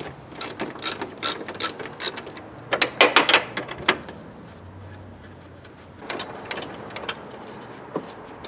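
Socket ratchet with an 8 mm socket clicking in short runs as the small bolts holding the fan are backed out, with a lull about halfway through.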